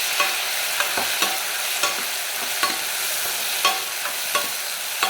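Sliced onions and ginger-garlic paste sizzling in hot oil in a heavy-bottomed pan while being stirred, the stirring utensil clicking against the pan at irregular intervals, about eight times.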